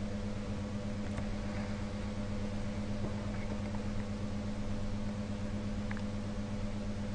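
Steady low hum with a light hiss of room tone, with a few faint ticks.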